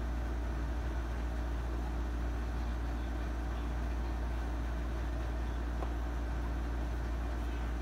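Steady low hum with a faint even hiss: room tone.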